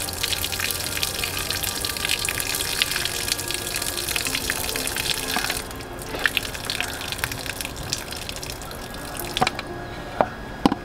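Water pouring and splashing off a tilted steel plate of washed raw fish pieces for about five seconds, then a few drips and small clicks as it drains.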